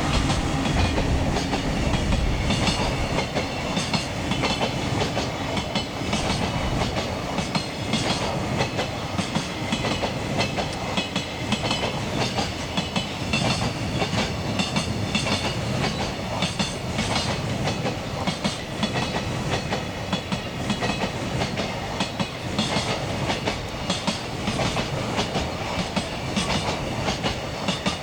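Long container freight train rolling past at speed, its wagon wheels clicking over rail joints in a continuous irregular clatter over a steady rumble.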